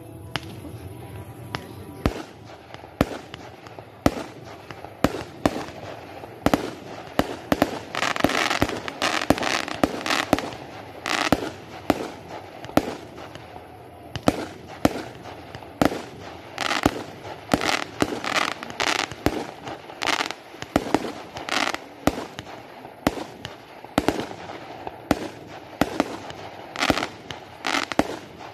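Fireworks display: aerial shells bursting in a long, irregular string of sharp bangs, about one or two a second, with a stretch of dense crackling about a third of the way in.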